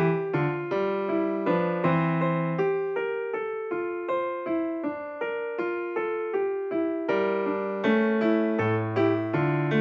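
Background piano music, a steady run of notes about twice a second.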